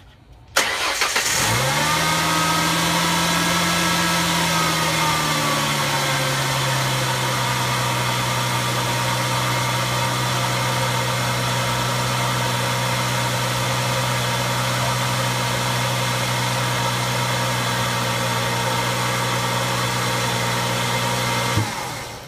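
2004 Ford Mustang's 3.9-litre V6 starting up on a short crank after a new alternator is fitted, running at a higher fast idle for a few seconds and then settling to a lower steady idle. It is switched off just before the end.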